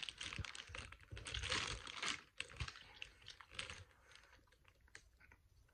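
Clear plastic candy packaging crinkling close to the microphone as a giant gummy worm is handled: dense, rapid crackling clicks for about two seconds, thinning to scattered clicks.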